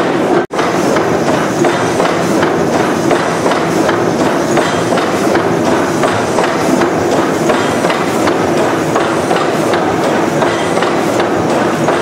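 600-horsepower Snow gas engine running: a steady, loud mechanical clatter of rapid clicks and knocks. The sound cuts out for an instant about half a second in.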